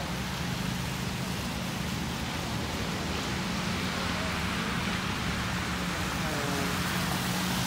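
Rainy city street ambience: a steady hiss of rain and car tyres on wet pavement over a low traffic hum, with faint distant voices.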